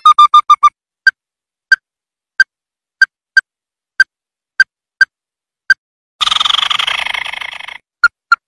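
Ruddy-breasted crake calling: a quick run of short notes, then single clipped notes spaced about every half second. About six seconds in, a harsh rasping rattle lasts about a second and a half and fades, followed by two more short notes.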